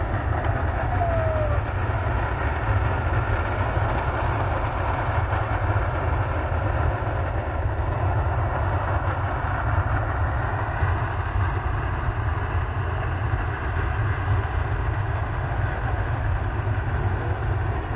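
Steamboat Geyser venting steam: a steady, continuous rushing noise with a deep rumble underneath, unchanging throughout.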